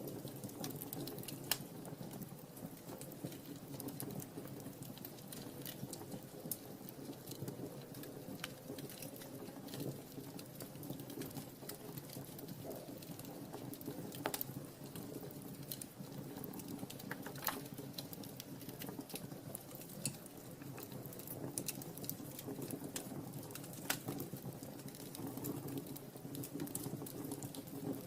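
Wood fire in a fireplace crackling, with a steady low rustle of flames and scattered sharp pops, the strongest about two-thirds of the way in and near the end.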